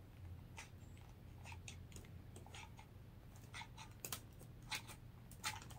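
Faint handling noise: a scatter of soft, short clicks and rustles from a hot glue gun worked against a wicker basket while a fluffy beard is pressed on.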